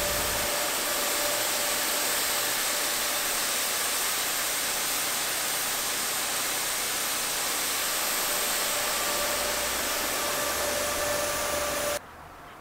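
Snowmaking machines (snow cannons) blasting snow over a ski slope: a loud, steady hiss of air and spray with a faint steady whine underneath. It cuts off suddenly near the end.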